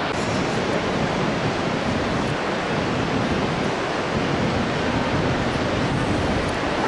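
Steady rushing noise of the Bhote Koshi river's whitewater, mixed with wind on the microphone.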